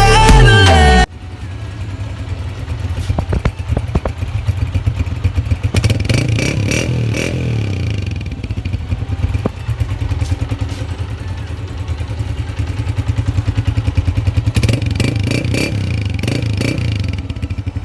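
A 125 cc motorcycle's single-cylinder engine running through a modified silencer, with a rapid pulsing exhaust beat whose loudness rises and falls as the throttle is opened a little.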